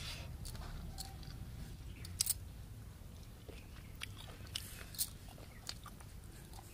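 A person chewing a mouthful of rice and snail curry eaten by hand, with scattered soft clicks and smacks from the mouth, the sharpest about two and five seconds in.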